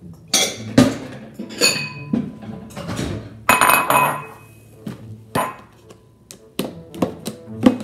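Ceramic bowl set down on a stone countertop with a clink and a brief ring, followed by a short rustling rattle and a series of knocks as a plastic cereal container is picked up and handled.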